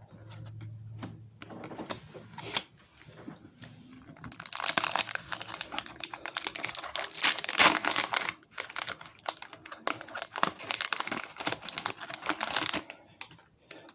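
Foil Pokémon booster pack wrapper crinkling and tearing as it is opened: scattered rustles and clicks at first, then dense crackling from about four seconds in until shortly before the end.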